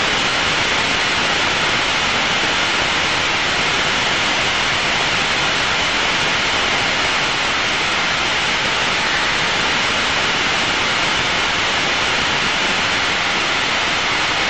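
Steady, even rushing noise inside the cockpit of an Aero L-39 Albatross jet trainer in level flight: engine and airflow noise heard through the intercom, with no change in level.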